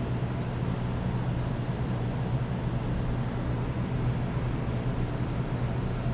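Electric fan running with a steady low hum and an even rush of air.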